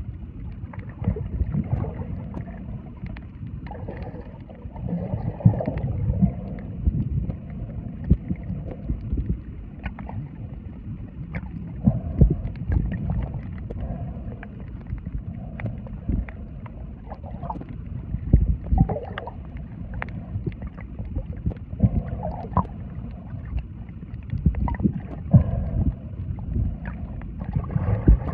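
Muffled underwater sound from a camera submerged in the sea: a low rumbling wash of moving water with scattered sharp clicks and pops and occasional gurgling.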